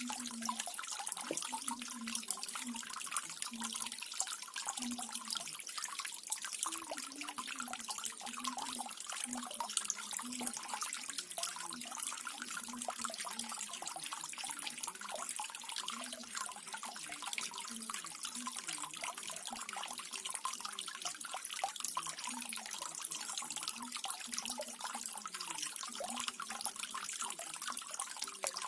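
Small garden waterfall-fountain: water splashing and trickling steadily, with short low gurgles from drops falling into the pool.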